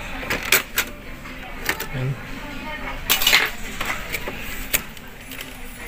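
Small sharp clicks and rattles of plastic parts being handled and pried inside an Epson L3210 inkjet printer, with a louder scrape about three seconds in.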